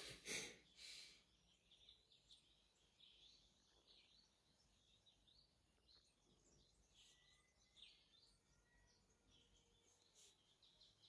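Near silence: room tone inside a parked car, with faint bird chirps from outside. A short rustle of handling noise comes in the first second.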